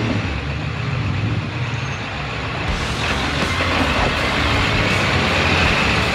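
Off-road truck engine running, with a steady high whine coming in about halfway through.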